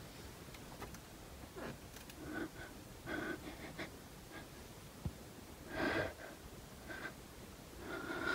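A person breathing faintly: several short breaths spread over a few seconds.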